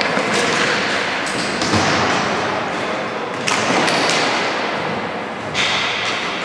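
Ball hockey play in a large hall: several sharp knocks of sticks on the ball and the ball hitting the rink boards, echoing, over a steady din.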